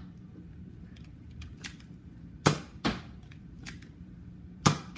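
Nerf blaster being fired twice, about two seconds apart; each shot is a sharp pop followed about a third of a second later by a second knock, with faint clicks between the shots.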